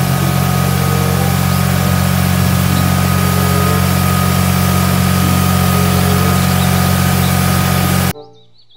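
Massey Ferguson tractor's diesel engine running steadily at idle, with an even hiss over the engine hum. It stops abruptly near the end.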